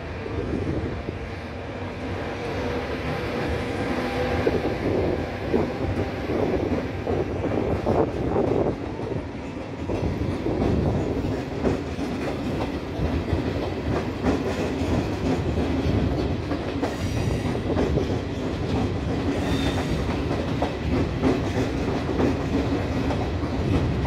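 Electric-locomotive-hauled regional passenger train rolling slowly through the station, its wheels clicking over rail joints and points, with a steady hum in the first half.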